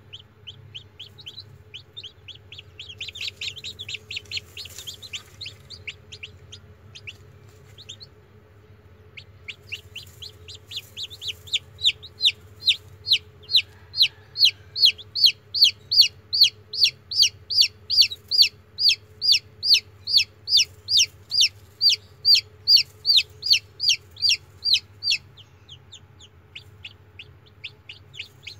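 Newly hatched chicks peeping: a long run of short, high peeps, each falling in pitch. They pause briefly about eight seconds in, then come loud and regular at about three a second. A faint steady low hum runs underneath.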